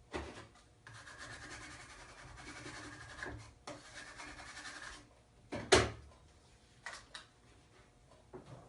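Backing paper being peeled off a thick vinyl decal, a rustling peel in two long pulls, followed by a sharp knock and a few light ticks.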